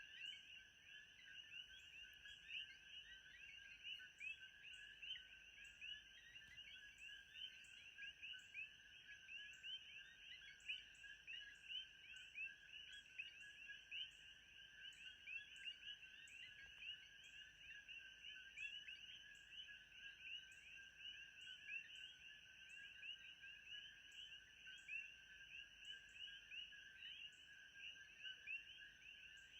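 Faint, steady nature chorus of many small overlapping chirping calls, with a continuous high-pitched trill pulsing regularly above them, typical of frogs and insects calling together.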